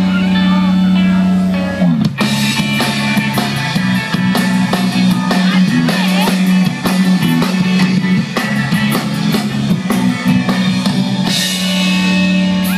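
Live rock band with electric guitars, bass guitar and drum kit playing an instrumental passage with no vocals. It opens on a held low chord for about two seconds, then the drums come in with a steady beat, and near the end a long held chord rings again.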